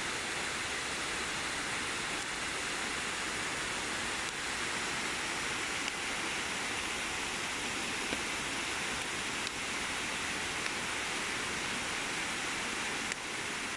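Shallow river water rushing steadily over rocks and small cascades, a constant even rush.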